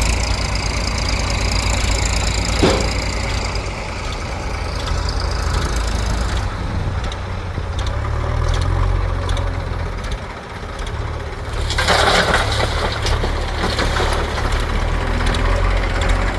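Heavy diesel engine of a backhoe loader running steadily, with a sharp clank a little before 3 seconds and a rush of crunching noise starting about 12 seconds in.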